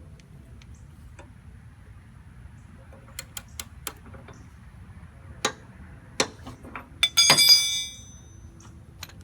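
Hand tools working on a mower deck spindle: a few scattered sharp metal clicks and taps, then a louder ringing metal clink about seven seconds in.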